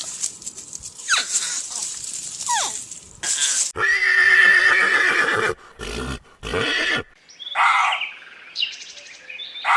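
Horse neighing: a series of whinnies and short calls, some falling in pitch, broken by abrupt cuts between separate recordings.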